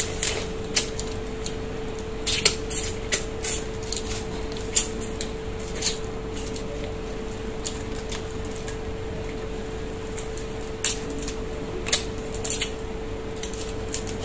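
Sharp, scattered cracks and clicks of steamed mud crab shells and claws being broken apart by hand while eating, over a steady low hum.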